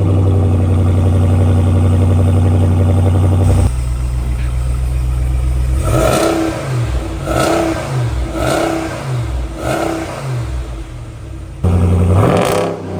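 2024 Ram Power Wagon's 6.4-litre HEMI V8 running through a freshly installed Borla S-Type cat-back exhaust just after its first start: a steady high idle that drops to a lower idle about three and a half seconds in, then four short throttle blips and a longer rev near the end.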